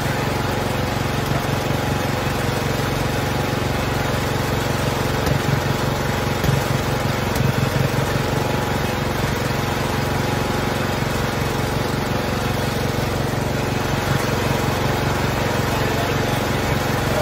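Wheel Horse B-120 garden tractor's single-cylinder Kohler engine idling steadily with its hood open.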